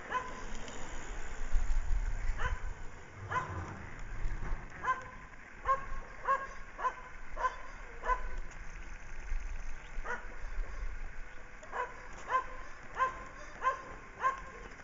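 A dog barking over and over in short, high yaps, irregularly spaced and at times about two a second. A low rumble comes and goes beneath the barks and is loudest about two seconds in.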